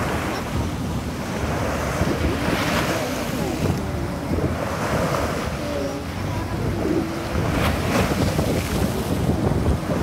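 Sea waves washing up and breaking on the shore, surging every two to three seconds over a steady wash of surf, with wind on the microphone.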